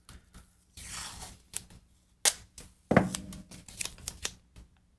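Blue painter's tape pulled off the roll and torn, then pressed onto the guitar's edge to hold down loose binding. A noisy rip comes about a second in, followed by a string of sharp clicks and taps.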